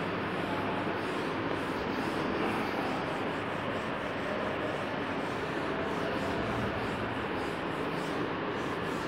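A chalkboard duster rubbing chalk off a blackboard: a steady scrubbing noise with no separate strokes standing out.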